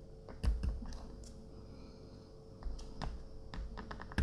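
Scattered light clicks and taps as the frame of a TM/WE airsoft Glock and its small parts are handled during reassembly. The loudest comes about half a second in, and a run of smaller ones follows in the second half.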